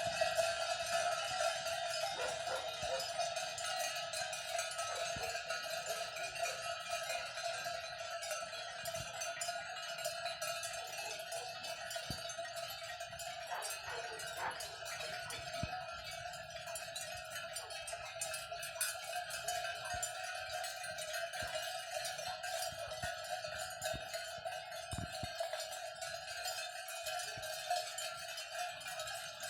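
Many cowbells on a herd of cattle clanking and ringing together without a break as the herd is driven past, with scattered knocks among the overlapping tones.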